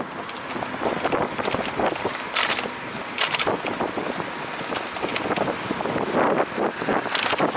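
Wind buffeting the microphone of a camera on a moving bicycle, an uneven rushing noise mixed with road noise, with a few brief hissing surges.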